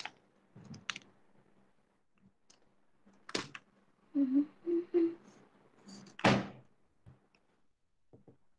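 Scattered thumps and knocks in a small room, the loudest about three and six seconds in, with a few short voice sounds between four and five seconds in.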